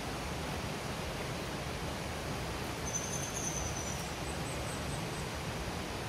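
Steady rushing of a small river flowing over rocks, with a brief high chirp about three seconds in.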